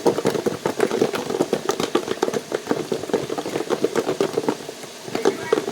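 Chicken wings frying in hot oil, a steady dense crackle and sizzle.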